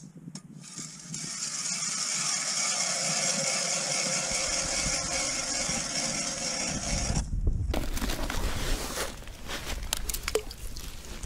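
Hand ice auger drilling into lake ice: the blades scrape and crunch steadily for about seven seconds, then stop. After that come scattered knocks and rustling.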